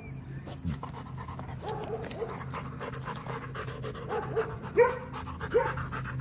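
Rottweiler digging into soil with its nose and paws, panting with short high whines between breaths, over faint scratching of dirt; the sharpest whines come near the end.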